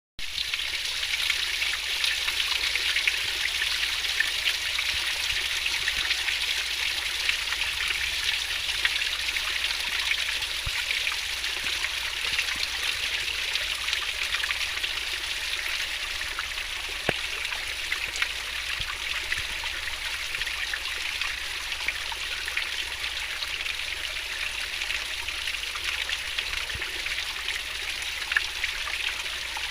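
Fast-flowing river water babbling and splashing steadily over stones, an even hissing rush dotted with small splashes.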